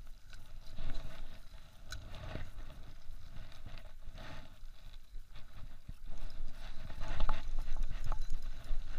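Spinning reel being cranked as a hooked fish is reeled in, with irregular clicks and knocks that get louder near the end.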